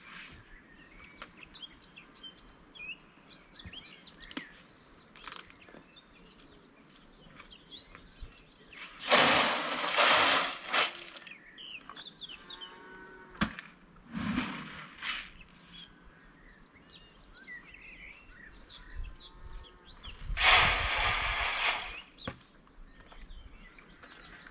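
Small birds chirping and singing in the background of a farmyard. About nine seconds in and again about twenty seconds in comes a loud rushing burst of noise lasting a second or two, with a smaller one in between.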